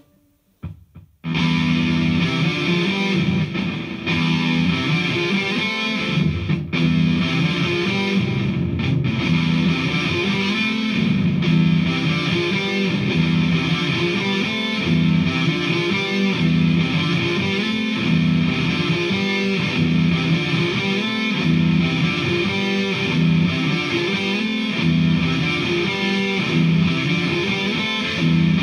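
Electric guitar (a Vintage V100 Les Paul copy) played through a DigiTech GNX3 multi-effects distortion patch into an H&K Attax amp. After about a second of near silence it plays heavily distorted, rhythmic riffing with a strong low end.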